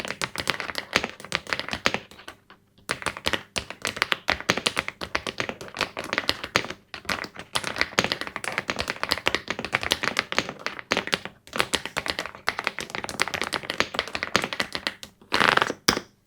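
Typing on a MechLands Vibe99 aluminium-cased 98% mechanical keyboard: rapid key clacks in steady runs with brief pauses, ending in a louder, denser flurry of keystrokes that stops suddenly.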